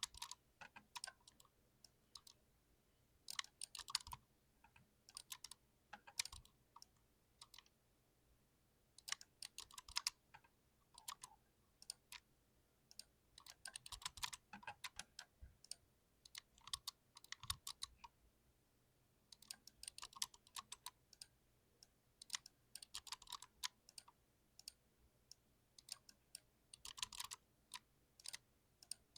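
Mechanical keyboard with TTC Red linear switches being typed on: runs of quick key clacks lasting a second or two, with short pauses between them.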